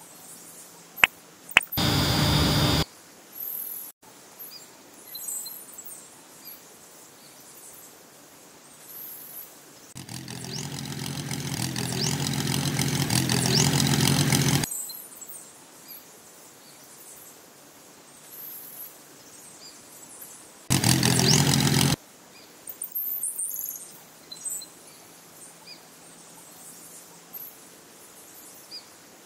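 Two clicks of a switch, then a small electric motor running in short spells: a one-second run, a longer run about ten seconds in that grows louder over four seconds before cutting off, and another brief run near the twenty-second mark. Birds chirp faintly in the background.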